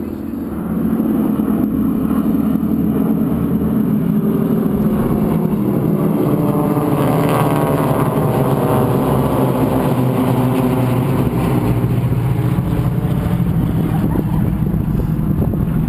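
Engines of a four-plane formation flying overhead, a loud drone that swells about a second in and holds, its pitch falling as the planes pass over about halfway through.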